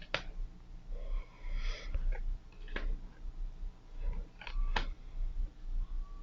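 Tarot cards being handled in a flip-through: soft sliding and rustling of cards, with three sharp taps as cards are set down, over a low steady hum.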